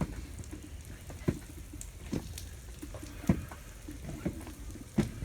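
Perch frying in a hot pan: irregular sharp pops and crackles, about one a second, over a low steady rumble.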